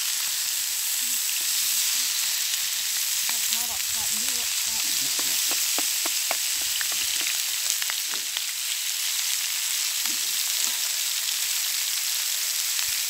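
Marinated chicken pieces sizzling and frying steadily in a frying pan over a wood fire. A run of sharp clicks and taps comes around the middle.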